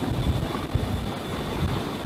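CH-53E Super Stallion helicopter hovering directly overhead: a heavy, uneven low rumble as the rotor downwash buffets the microphone, with a faint steady high whine.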